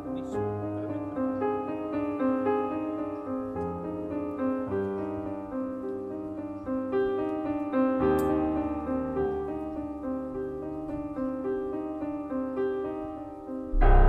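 Background piano music: a steady melody of short notes over slower bass notes.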